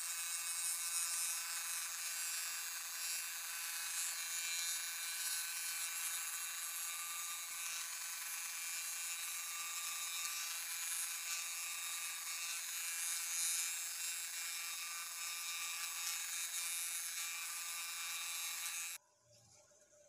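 Electric scroll saw running steadily while its blade cuts a curve in a coconut-wood board; it stops suddenly near the end.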